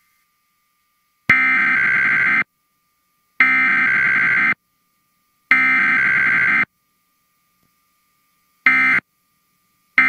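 Emergency Alert System SAME digital data bursts: three harsh, buzzy bursts of about a second each, a second apart, encoding the test alert's header. Near the end come two much shorter bursts of the same data tone, typical of the end-of-message code.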